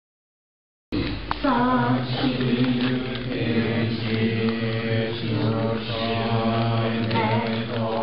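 A group of students chanting Buddhist prayers together in unison on a low, steady pitch. The chant starts abruptly about a second in.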